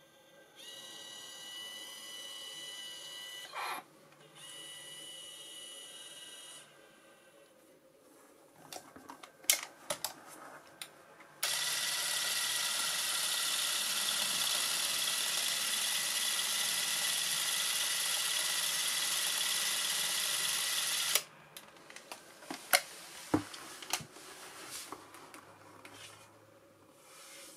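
Super 8 film camera running its motor and film transport: two short steady whirring runs, a few clicks, then a loud steady whir lasting about ten seconds that stops suddenly, followed by more clicks and knocks of the mechanism.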